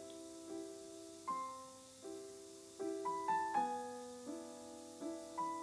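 Soft background piano music, gentle notes and chords struck about every half second.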